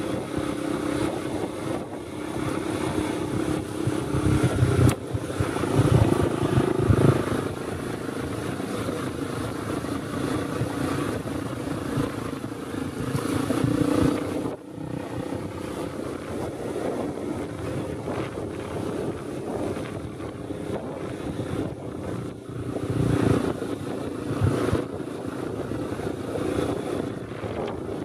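Small dirt-bike engine running under way on a rough dirt track, its pitch rising and falling with the throttle. It gets louder in surges a few seconds in and again near the end.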